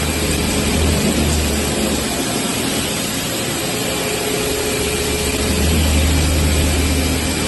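CNC milling machine roughing a closed pocket in SAE 1045 steel with a high-feed cutter: a steady, loud cutting noise over a low machine hum that weakens for a few seconds midway and then comes back.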